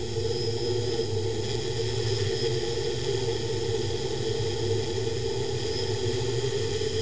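DIY octocopter's eight electric motors and propellers running steadily in flight, heard from an action camera mounted on the craft itself: a steady multi-tone whir that holds its pitch throughout.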